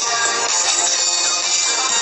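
Music playing: a continuous song track at steady loudness.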